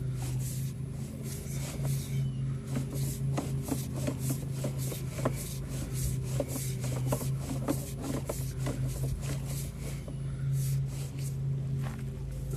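Sewer inspection camera's push cable being fed down a drain line: irregular scraping and clicking over a steady low hum.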